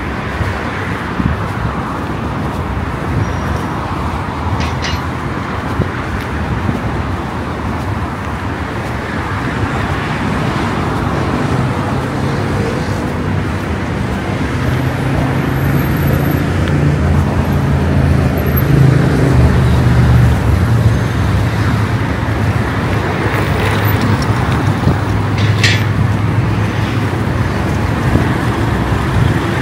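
Street traffic: a steady wash of passing vehicles, with a heavy engine running close by and growing louder from about a third of the way in. Two short high-pitched squeaks stand out, one early and one near the end.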